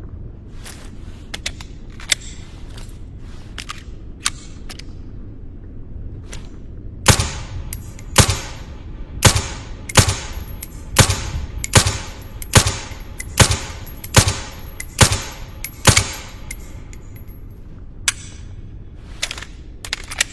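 SilencerCo Maxim 9 integrally suppressed 9mm pistol firing, about eleven shots roughly a second apart starting about seven seconds in, with fainter clicks before and after over a steady low rumble.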